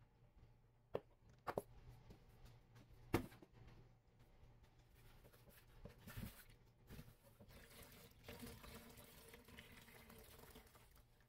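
Faint, soft crackling and squishing of a sponge caked with Comet cleanser powder and dish soap as gloved hands squeeze it. A few sharp clicks come in the first three seconds, the loudest about three seconds in.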